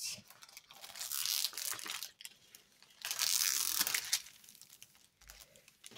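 Crinkling and rustling of the clear plastic film covering a diamond painting canvas as hands press and smooth it, in two louder spells about a second in and about three seconds in.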